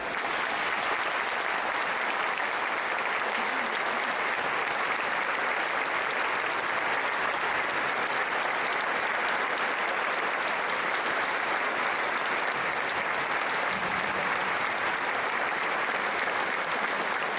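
Large audience applauding steadily, a continuous even clapping without a break.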